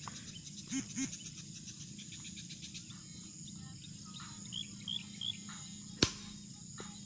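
Field ambience of insects, crickets chirring steadily, with three short bird chirps about halfway through. About six seconds in comes one sharp clapperboard snap.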